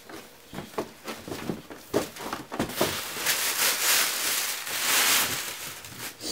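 Paper gift bags and wrapping being handled: scattered light crackles and knocks, then about two seconds of steady rustling and crinkling in the middle.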